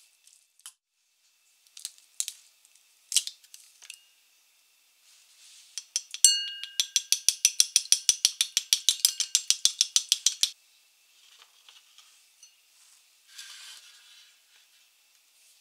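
Chopsticks beating an egg in a glass bowl: a fast, even clicking of about ten strikes a second against the glass for around four seconds, the first strike making the bowl ring briefly. Before it, a few scattered clinks of a metal spoon stirring in a stainless steel bowl.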